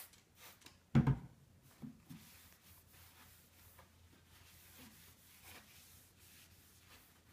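A few short sprays from a trigger spray bottle, then the bottle set down on the countertop with a knock about a second in. After that, a paper towel rubbing back and forth over the countertop with a soft, steady swish.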